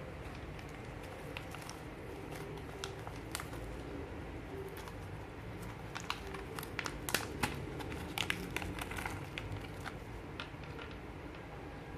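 Scattered small clicks and crackles from miniature grill cooking over a steady low hum. The clicks come thickest a little past the middle.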